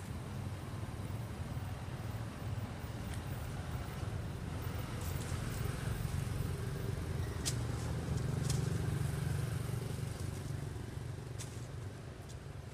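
Low engine rumble of a motor vehicle passing, growing louder about eight seconds in and then fading, with a few sharp clicks and snaps over it.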